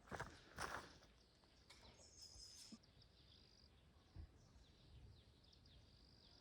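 Faint birdsong in woodland: a high bird call about two seconds in, then scattered short chirps. Two brief rustles sound in the first second.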